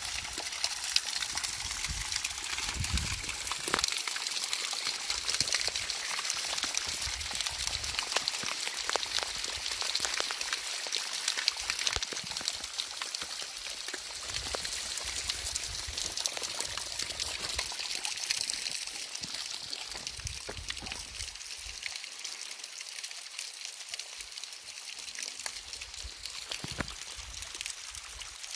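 Water from a spring-fed waterfall with little flow, dripping and splashing onto rock and pool: a steady trickle with many separate drips. A little quieter in the last third.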